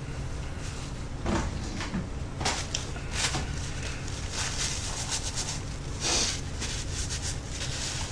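Crinkling and rustling of a white paper wrapper being handled and folded: a string of short, irregular crackles, a few louder ones near the start, the middle and about six seconds in, over a low steady room hum.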